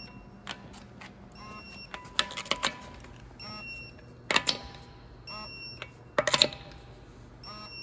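Torque wrench tightening wheel nuts to 76 foot-pounds one after another. About every two seconds there is a short ratcheting run ending in a brief beep as each nut reaches torque, with sharp metallic clanks as the socket goes onto the next nut, four times in all.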